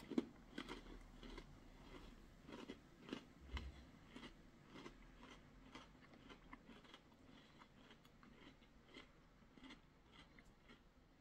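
A person chewing hard, crunchy whole-wheat braided taralli (treccine integrali). It is a run of faint dry crunches, about three a second, growing fainter after the first few seconds.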